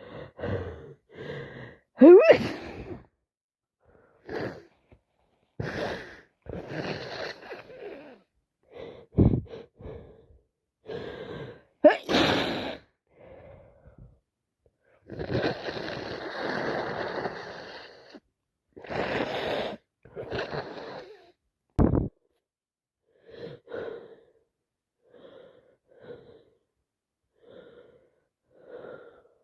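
A person with a heavy head cold sneezing several times, with gasping build-ups between the sneezes, then quieter breaths and sniffles near the end.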